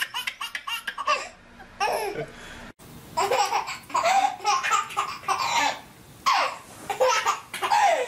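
Baby laughing hysterically in quick rhythmic pulses that break off partway through. About three seconds in, another baby laughs in short bursts.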